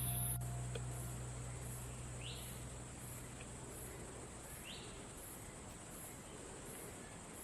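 Faint forest ambience: a steady high insect trill pulsing about every half second or so, with a short rising bird call twice. A low hum of background music fades out over the first few seconds.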